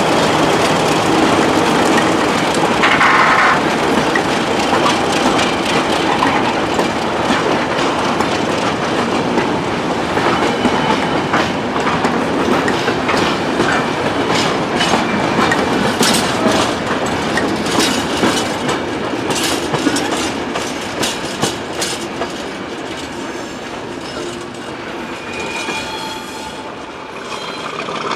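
Train running past, its wheels clattering over rail joints with a dense run of clicks through the middle. The sound fades near the end, with a faint high wheel squeal.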